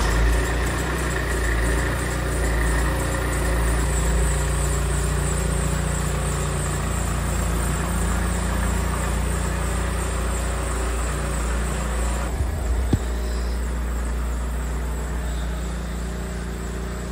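Mercedes-Benz W211 E-Class engine running steadily just after being started. A single thump about 13 seconds in.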